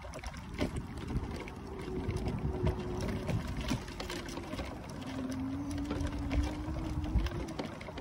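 Electric mobility scooter's motor whining steadily as it drives over bumpy grass, with short knocks and rattles from the ride and wind on the microphone. The whine dips a little in pitch after the middle and rises again near the end.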